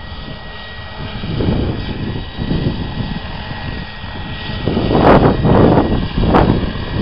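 Radio-controlled model helicopter in flight, its engine and rotor running steadily with a thin whine. The sound swells louder several times, loudest about five to six seconds in.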